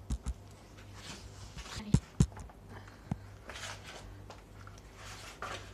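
Hands rubbing and squeezing crumbly flour-and-soft-butter shortbread dough in a wooden bowl: soft rustling and squishing, with a few sharp clicks. A steady low hum runs underneath.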